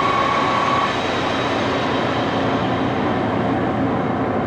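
1941 Axelson gearhead lathe running steadily in its top spindle speed of about 1127 rpm, with the even noise of its gear drive. A steady high whine stops about a second in.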